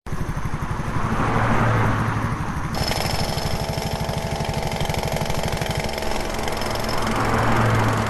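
Heavy construction machinery running at a harbour repair site: a steady engine drone with a rapid regular knocking over it. A second machine joins abruptly just under three seconds in, adding a high steady whine, and the knocking fades about six seconds in while the engine runs on.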